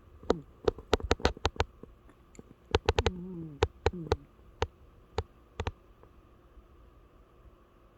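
A cat snoring: about three short breaths that fall in pitch, mixed with many sharp clicks that come in quick runs in the first few seconds and thin out toward the middle.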